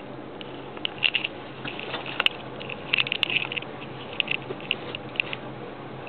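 Irregular soft clicks and rustles of a handheld camera being moved about and handled, thickest in the middle, over a low steady hum inside a pickup truck's cab.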